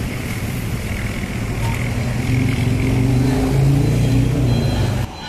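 A motor vehicle's engine runs and grows louder, rising slightly in pitch, then cuts off suddenly near the end.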